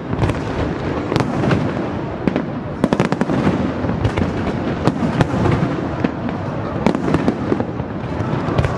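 Aerial fireworks display: a rapid, irregular run of sharp shell bursts and crackling reports, some in quick clusters, over a continuous low rumble.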